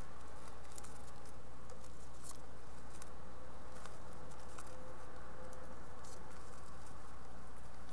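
Steady electrical hum with scattered light scratches and taps: house finch fledglings' claws shuffling and scrabbling on the nest box floor and walls.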